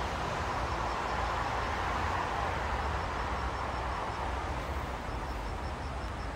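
Outdoor ambience in the rain: a steady rushing noise that swells for a couple of seconds and eases off, over a low rumble, with a faint high pulsing of about four beats a second coming and going.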